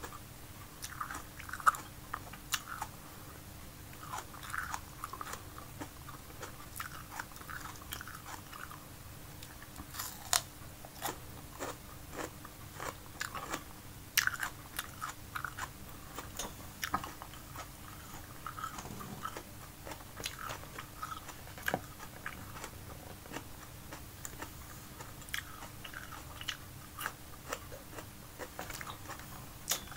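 Close-up chewing and biting of raw red bell pepper, with crisp crunches scattered through the chewing.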